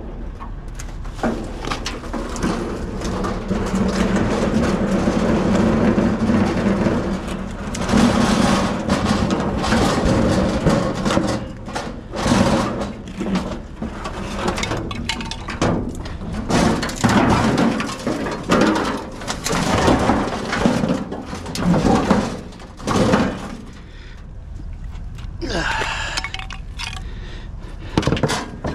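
Scrap metal pieces being handled and tossed onto a truck: a run of irregular knocks, clanks and clatter, over a steady low hum in the first several seconds.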